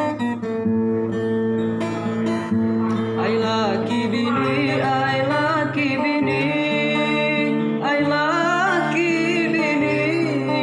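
Batang Hari Sembilan regional song: guitar accompaniment holding chords, with a singer coming in about three seconds in and singing long notes with vibrato.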